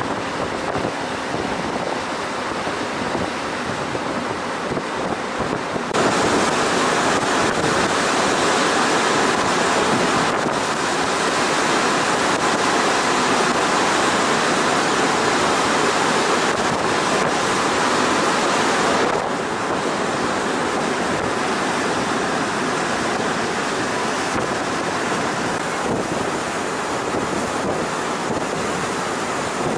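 Steady rush of wind buffeting the microphone over the churning wake of a fast jet-boat ferry under way. It gets louder about six seconds in and eases somewhat near the nineteen-second mark.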